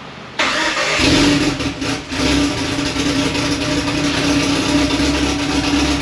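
A car engine, the drag car's turbocharged Mitsubishi 4G63, fires up about half a second in and settles into a steady, loud idle.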